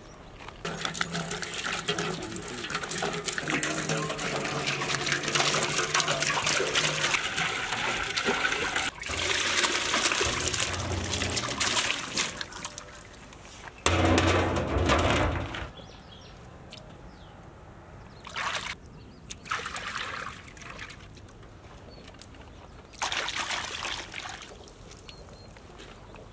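Water pouring steadily into a large metal tub of black grapes, followed by a few short bouts of splashing as hands wash the grapes in the water.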